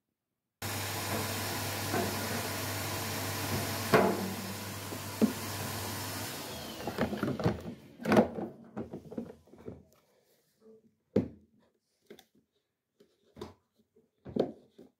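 A vacuum cleaner starts abruptly and runs steadily with a low hum for about five seconds, then is switched off and winds down. After that come a string of clicks and knocks from plastic parts and wiring connectors being handled, the loudest a little after the vacuum stops.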